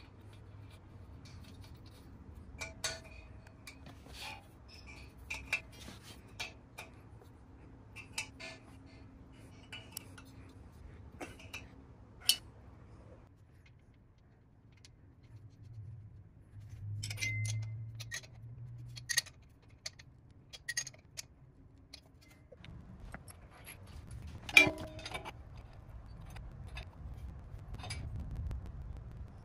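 Small metal parts clinking and tapping as brass fittings and a spark plug are threaded into a vintage engine's cast-iron cylinder heads and snugged with an open-end wrench: scattered sharp clicks, one louder knock a little before the end, over a faint low hum.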